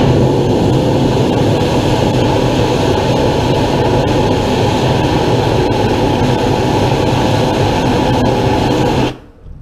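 Steam blasting out of the J&L 58's rebuilt steam locomotive boiler at about 100 pounds of pressure: a loud, steady rushing blast that cuts off suddenly about nine seconds in.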